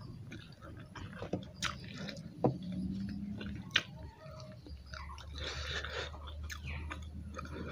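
Chewing and mouth sounds of a person eating rice and fish curry by hand, with fingers mixing food on a steel plate. A couple of sharp clicks between two and four seconds in.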